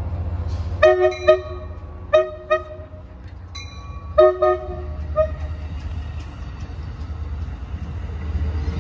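Shore Line East commuter train's horn playing a horn show: a rhythmic pattern of short toots in quick groups (three, then two, then a few more) that ends about five seconds in. Under it the train rumbles steadily past, growing louder near the end.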